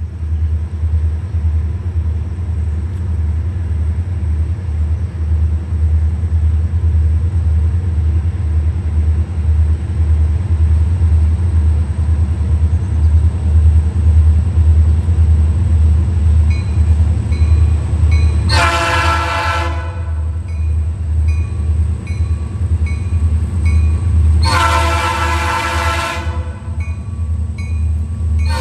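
EMD diesel locomotives running in a multi-unit lashup, a loud steady pulsing rumble that swells just after the start, with two long horn blasts about 19 and 25 seconds in.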